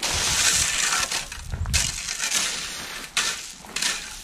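Loose gravel crunching and scraping under a rake, in several uneven strokes as the gravel is raked out smooth.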